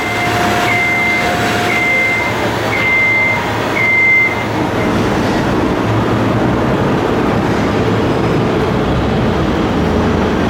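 Loud street traffic with a heavy vehicle's low rumble, and a reversing alarm beeping five times, about once a second, over the first four seconds.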